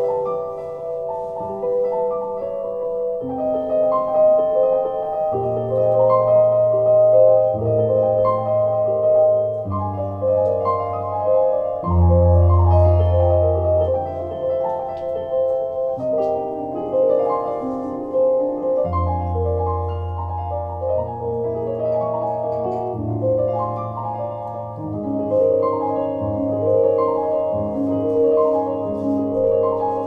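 Solo keyboard music from a digital stage keyboard: a flowing figure of repeated mid-range notes over deep held bass notes that change every two seconds or so, in a mellow tone.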